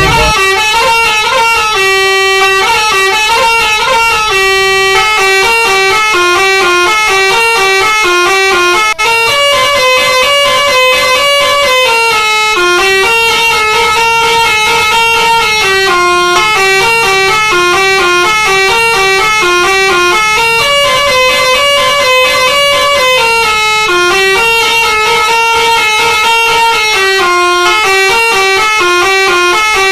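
Multi-tone 'telolet' musical air horn of a Basuri bus, playing a long, loud melody of short stepped notes that rise and fall continuously.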